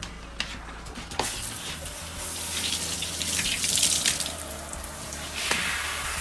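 Water spraying from a garden hose nozzle onto a Great Dane's soapy coat, rinsing it during its bath. The spray comes on about a second in after a couple of light clicks, and swells in the middle.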